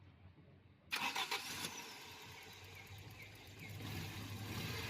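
Car engine cranked and catching about a second in, with a short burst of clatter, then running steadily and slightly louder toward the end.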